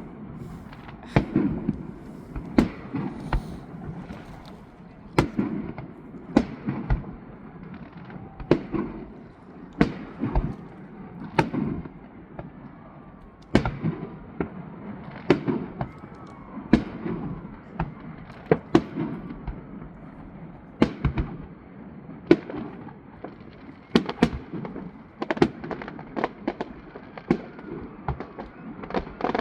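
Fireworks display: a continuous, irregular series of sharp bangs, one to three a second, each followed by a low rolling rumble.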